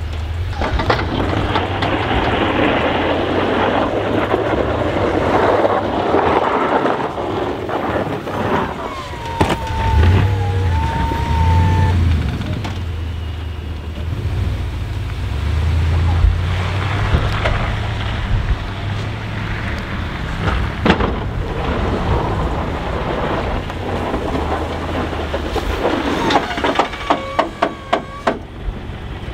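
Pickup truck with a front snow plow running steadily as it pushes heavy, wet snow, with the engine's low hum under a constant rush of noise. Near the end comes a quick run of sharp clicks or knocks.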